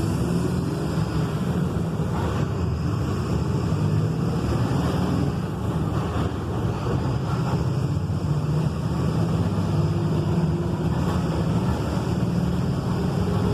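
Volkswagen 17.230 EOD truck's diesel engine running with a steady low drone.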